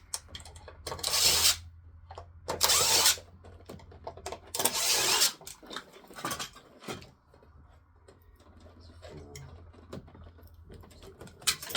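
A power drill run in four short bursts of about half a second to a second each, taking an old box apart, followed by quieter clicks of handling.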